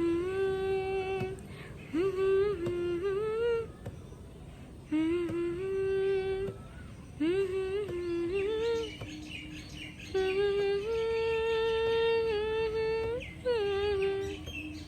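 A woman's voice humming a slow melody without words, in phrases of held notes with small upward glides, pausing briefly between phrases.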